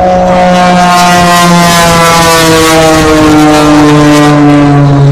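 The Viper, a 400-horsepower aerobatic propeller plane, passing by loud and steady under power, its engine-and-propeller drone sliding slowly down in pitch as it goes past.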